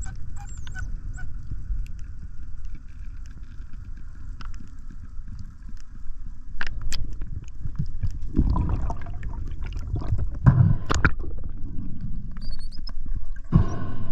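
Muffled underwater rumble of water moving around a camera housing on a speargun. Louder rushing surges come about eight seconds in, again around eleven seconds and near the end, with scattered sharp clicks.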